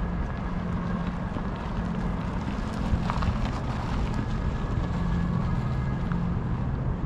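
Outdoor harbourside city ambience: a steady low rumble with a faint hum, and wind on the microphone.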